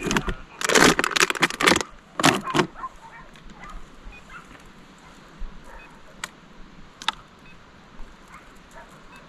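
Rustling and jangling handling noise: a burst of about a second and a half, a shorter one after it, then a few single sharp clicks.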